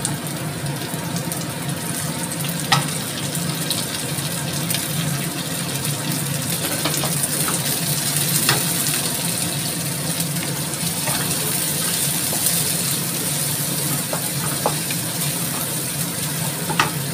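Sliced chilies, shallots, garlic and dried mushrooms sizzling in hot oil in a nonstick frying pan while a wooden spatula stirs them, with a few sharp taps of the spatula against the pan. A steady low hum runs underneath.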